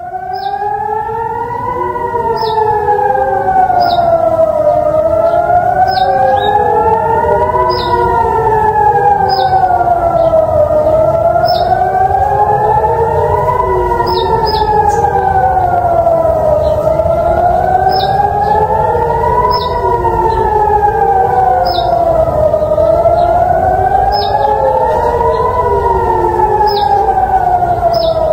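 Israeli civil defense air-raid sirens wailing, the pitch slowly rising and falling about once every six seconds, with more than one siren heard at once, out of step with each other. The loud wail swells in over the first few seconds; in Israel this rising-and-falling tone is the public attack alert.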